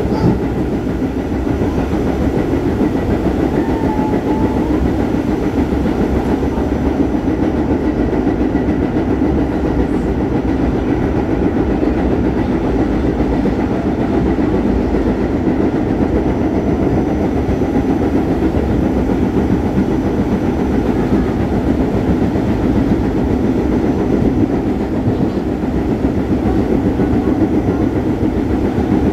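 Staten Island Railway R44 subway car running along the line, heard from inside the car: steady low noise of wheels on rails, with a faint thin whine higher up.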